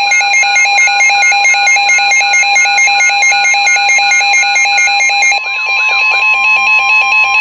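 Emergency alert attention signal ahead of a severe thunderstorm warning: a loud, steady electronic tone with rapid pulsing beeps at several pitches over it. The beep pattern changes about five seconds in, and the signal stops abruptly at the end.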